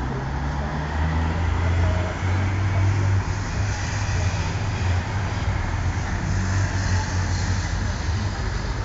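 Road traffic: motor vehicle engines running steadily, a low rumble.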